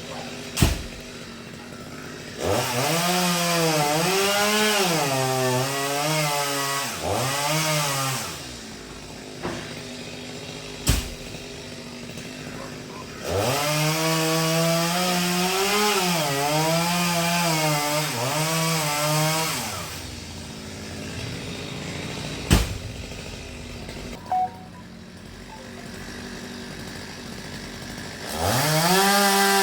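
Chainsaw revving up and cutting into a coconut palm in three long stretches, its pitch sagging and rising as the chain bites, dropping back to idle in between. There are three sharp knocks along the way.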